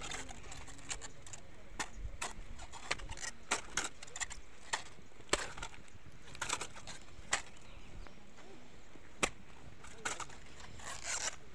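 Irregular crisp snaps, cracks and rustles of harvested cabbage heads and their leaves being handled and arranged.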